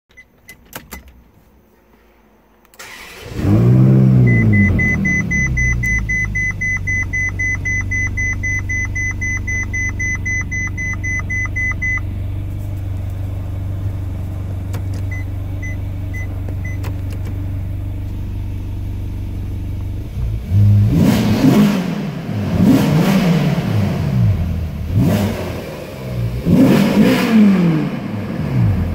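Warm start of a Ferrari California's V8, heard from inside the cabin: a few clicks, a brief crank, and the engine catches with a rev flare before settling to a steady idle. A dashboard chime beeps rapidly over the idle for several seconds, then a few more times. In the second half the throttle is blipped four times, each rev rising and falling back to idle.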